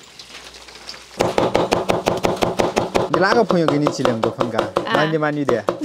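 Fast, steady chopping with a knife on a cutting board, about eight strokes a second, starting about a second in. Before it, a faint hiss of water poured over dried rice noodles in a steel bowl.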